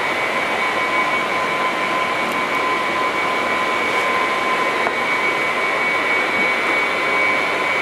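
Steady machine drone with a constant high whine from fish-hatchery pump equipment, with a few faint clicks.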